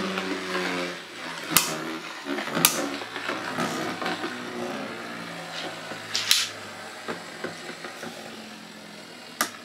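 Two Beyblade Burst spinning tops, Z Achilles and Maximum Garuda, whirring in a plastic stadium just after launch. The whir fades in the first second, then several sharp clacks come as the tops strike each other.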